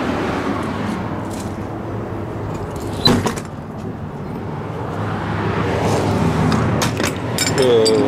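Steady rushing hum of vehicle noise. A single sharp click comes about three seconds in, and a few lighter clicks follow near the end.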